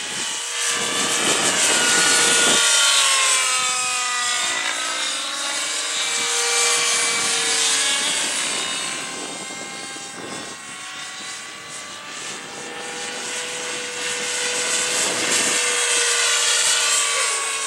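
JR Vibe 50 radio-controlled model helicopter in flight, its engine and rotor sound sliding up and down in pitch as it manoeuvres. It is loudest in the first few seconds, fades around the middle and grows louder again near the end.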